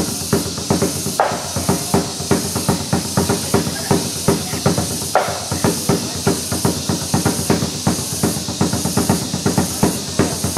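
Traditional dance music with a quick, steady drumbeat over a sustained melody, accompanying a group dance.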